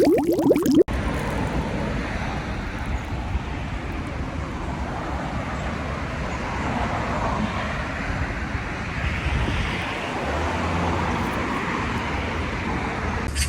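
Steady road-traffic noise: an even wash of passing cars with a low rumble underneath.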